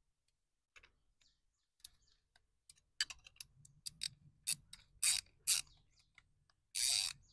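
Metal parts of a universal exhaust rain flap clicking and scraping as it is screwed together by hand. A few faint ticks at first, then from about three seconds in a run of sharp clicks and rasps about twice a second, with a longer scrape near the end.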